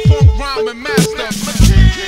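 Hip hop beat with deep bass drum hits that drop in pitch, twice, and vocal sounds curving over them.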